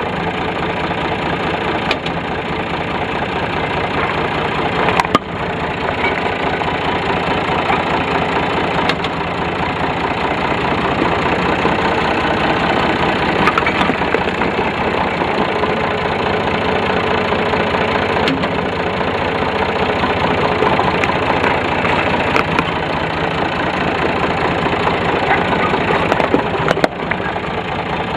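Tractor engine running close by while a small die-cast metal toy car is crushed under its tyres, with crunching and scattered sharp cracks.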